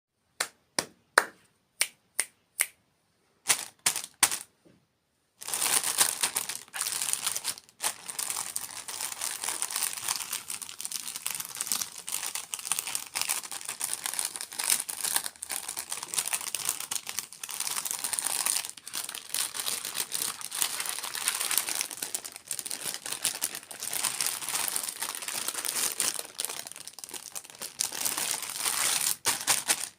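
About a dozen sharp taps or clicks, then from about five seconds in a continuous close crinkling of packaging being handled.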